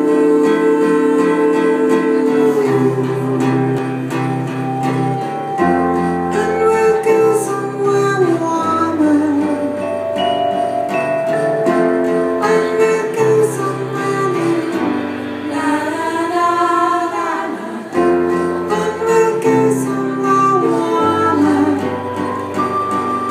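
Live band playing a song: electric bass and strummed acoustic guitar under sustained chords, with singing over the top.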